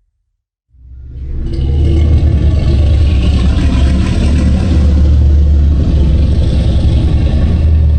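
Godzilla sound effect: after a brief silence, a loud, deep rumbling blast swells in over about a second and holds steady.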